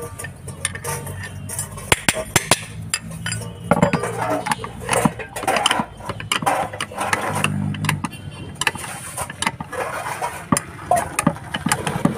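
Metal clinks and knocks of a spanner and a diesel filter housing being handled and tightened, with an engine idling nearby at times.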